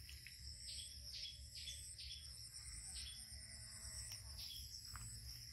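Steady high-pitched drone of insects in the field, with a short chirp repeating about twice a second through the middle, over a low rumble.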